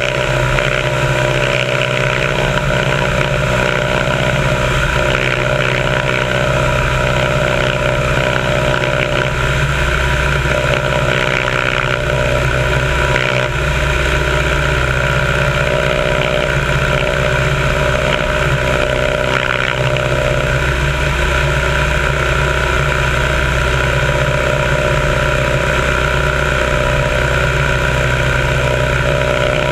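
Biplane's piston engine and propeller running steadily in flight, heard from a camera on the upper wing with airflow rushing over the microphone.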